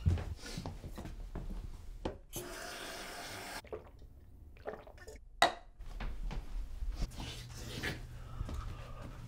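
Water running from a tap for about a second, with knocks and clinks of kitchenware around it and one sharp click about five seconds in; a low hum sets in near the end.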